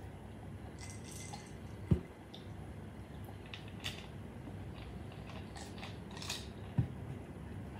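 A person eating noodles: quiet chewing with small wet clicks and slurps. Two dull thumps, the loudest sounds, come about two seconds in and again near the end.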